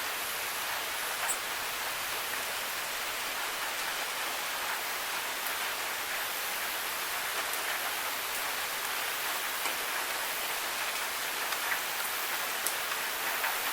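Steady rain falling on hard surfaces: an even hiss with scattered single drops ticking through it.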